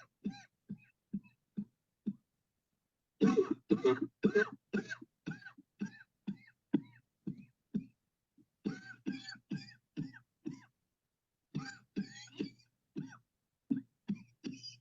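A person coughing in repeated fits: runs of quick, short coughs, one after another, broken by pauses of about a second.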